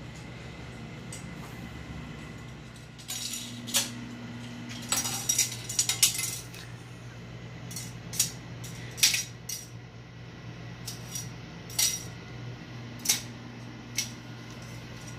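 A plastic spoon clattering and skittering on a hard tiled floor as kittens bat it around: scattered light clicks and taps, with a busy cluster a few seconds in and then single knocks.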